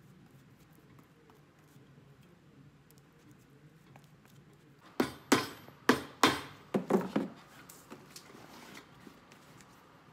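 Cobbler's hammer striking a leather sole laid over an iron shoe last: about seven sharp blows in quick succession about halfway in, then a few light taps.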